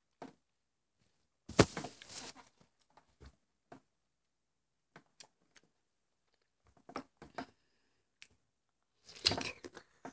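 Someone biting into a slice of watermelon and chewing it, in short wet bursts with pauses between. There is a sharp bite about a second and a half in, a few smaller ones after it, and another run of biting and chewing near the end.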